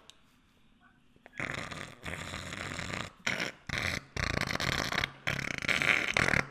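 A person blowing their nose into a tissue: a run of long, noisy blows with short breaks between them, starting about a second and a half in.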